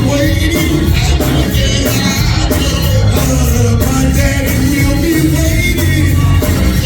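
Gospel music in church: voices singing over a band with strong bass and a steady beat.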